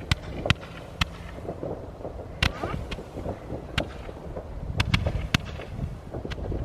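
Fireworks going off: about ten sharp cracks and pops at irregular intervals, several close together about five seconds in, over a low rumble.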